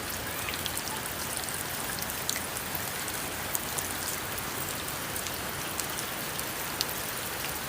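Steady rain falling on the garden, an even hiss with scattered sharper drips and drops on nearby surfaces.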